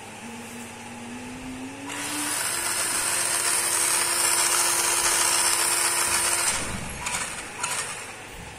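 Small DC gear motors of a toy car spinning its wheels in the air: a faint whine rises in pitch, then the motors whirr loudly and steadily for about four seconds and stop sharply, followed by a couple of clicks.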